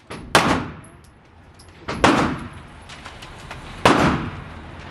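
Three gunshots about a second and a half apart, each a sharp crack followed by a long echoing decay.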